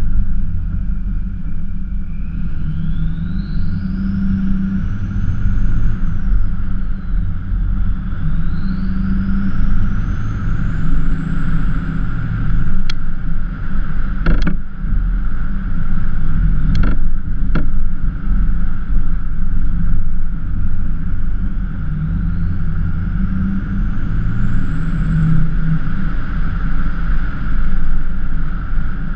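Ford F350 pickup driving, with a steady low rumble of engine and road noise. A high whine rises in pitch over a few seconds and falls away, three times, as the truck speeds up. A few sharp clicks come about midway.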